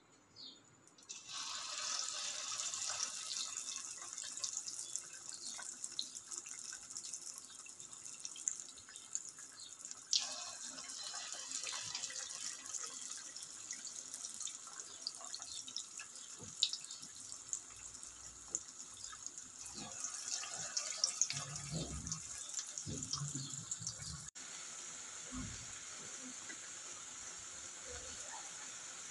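Crumb-coated chicken drumsticks deep-frying in hot oil in a steel pot: a dense sizzle full of small crackles and pops that starts about a second in as the first drumstick goes in. A few soft low knocks come late on, and after a sudden break near the end the sizzle goes on steadier.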